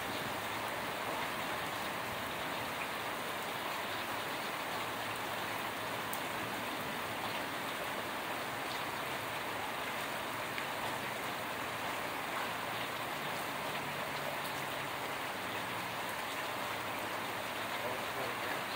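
Heavy thunderstorm rain falling steadily: an even hiss of rain, with now and then a sharper tick of a single drop.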